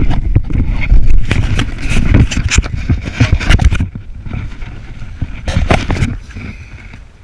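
Action camera being handled and knocked about: a quick run of loud knocks, thumps and scraping on the camera with a low rumble, thinning out after about four seconds, with one last cluster near six seconds.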